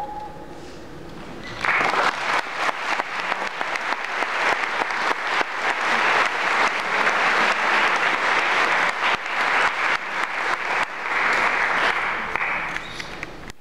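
The last held note of a Dakota flute dies away, and about two seconds in an audience breaks into applause that runs on steadily.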